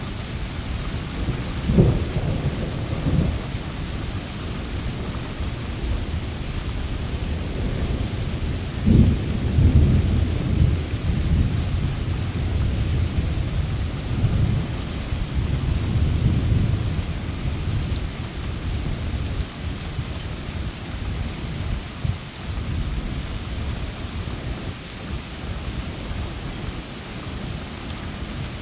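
Thunder rumbling in long, low rolls over steady rain. There is a sharp peal about two seconds in and the heaviest rolling from about nine to sixteen seconds in, then it fades back to the rain.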